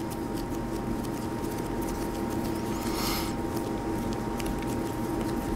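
A steady background hum with several fixed tones, with faint light ticks and a brief soft rustle about three seconds in from hands working dough.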